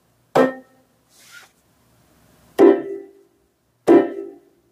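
Casio electronic keyboard played with three forceful strikes on the keys, about a second in, then twice more near the end, each ringing out and fading.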